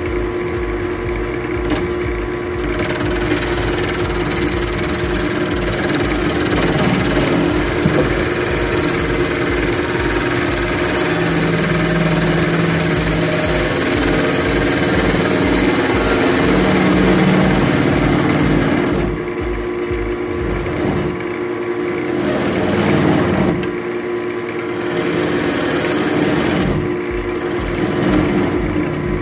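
Wood lathe running with a steady hum while a turning tool cuts the inside of a spalted beech bowl, a continuous rough scraping noise. In the last third the cutting noise drops away and returns several times as the tool comes off the wood, while the lathe hum carries on.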